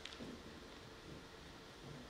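Near silence: faint room tone with a soft click right at the start.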